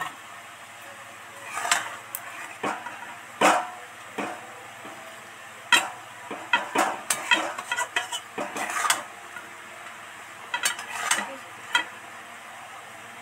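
A metal spatula stirring a thick, sticky tamarind pickle in a metal karahi, scraping and clinking against the pan. The strokes come in clusters with pauses between them; the densest run is in the middle.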